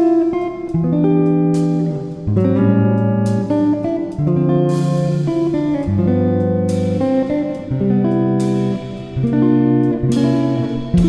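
Background music led by guitar, with chords and single notes changing about once a second and a regular percussive stroke.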